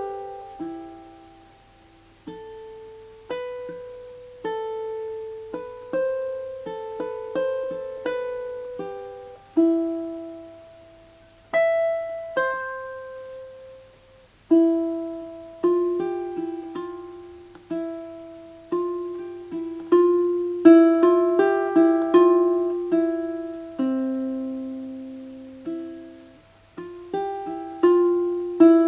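Solo high-G ukulele playing a slow plucked melody with chords, each note left to ring and fade, with a few brief pauses between phrases.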